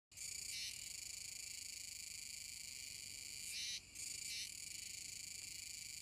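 A chorus of Kuroiwa tsukutsuku cicadas (Meimuna kuroiwae) making a steady high-pitched buzz, with brief louder swells about half a second in and again around three and a half to four and a half seconds in.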